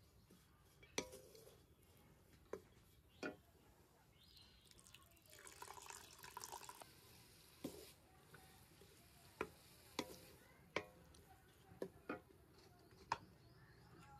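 Wooden spoon stirring grated coconut in an iron karahi, knocking sharply against the metal about ten times. A short stretch of liquid pouring in the middle as milk is added to the coconut.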